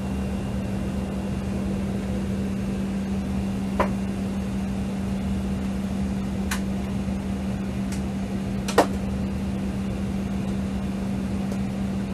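Steady hum of air-conditioning airflow inside an Embraer airliner's cabin, pressurized on the ground to about 5 PSI differential for a window-seal leak check, with a steady low tone. Three short sharp clicks sound about four, six and a half and nine seconds in, the last the loudest.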